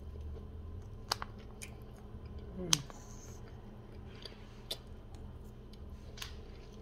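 Quiet eating: chewing and mouth sounds while a plastic fork picks up rice and lettuce, with a handful of sharp clicks, the loudest about halfway through.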